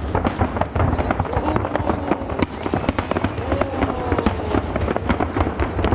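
Aerial fireworks shells bursting in a dense, continuous barrage: many sharp bangs and crackles overlapping with no break.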